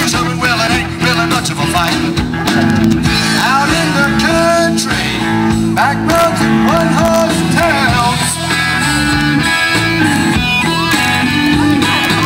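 Live country band playing an instrumental break in a honky-tonk song, with a lead guitar over a steady bass and drums.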